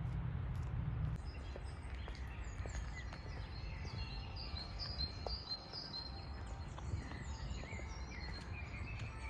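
Birds chirping and singing, many short calls, over a steady low background rumble; a low hum underneath stops about a second in.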